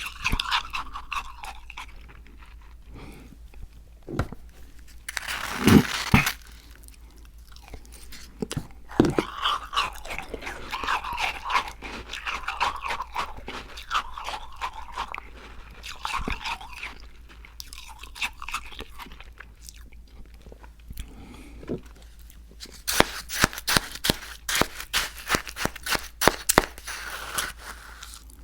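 Close-miked biting and chewing of crunchy cookies: crisp crunches in bursts, one loud bite about six seconds in and a dense run of crunching near the end.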